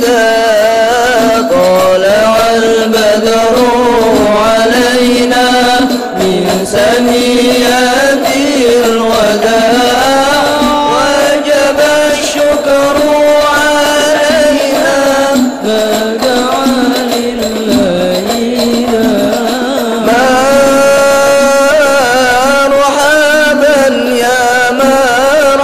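Men singing a sholawat (Islamic devotional song to the Prophet), with a lead voice on a microphone, accompanied by hand-struck rebana frame drums.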